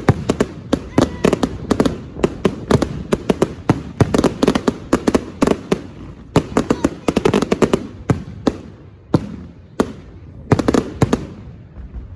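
Fireworks display going off: a rapid, dense run of sharp bangs and crackles, several a second, that thins out near the end.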